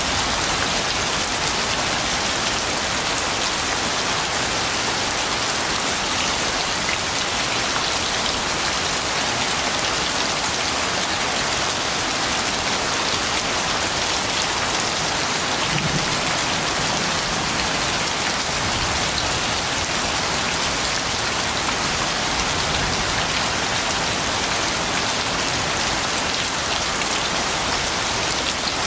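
Steady rain falling and pattering on a surface, a dense even hiss with many small drop impacts.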